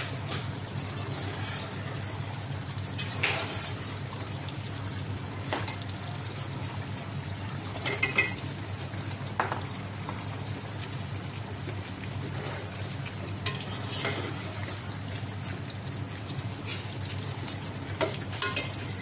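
A metal slotted spoon stirring chicken curry in an aluminium pot, with short clinks and knocks against the pot and potato pieces dropping in every few seconds. Underneath, the curry sizzles faintly over a steady low hum.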